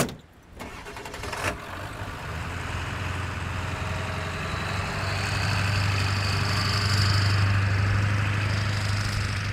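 Ford F-250 pickup truck driving over beach sand and passing by. Its engine hum grows steadily louder, peaks, then starts to fade near the end. A sharp knock at the very start.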